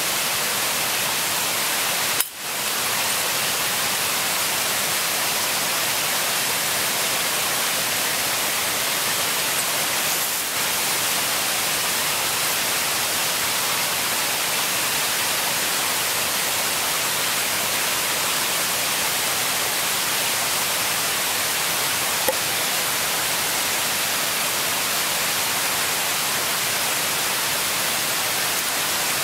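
Steady rushing of running water, an even, unbroken hiss that briefly dips about two seconds in.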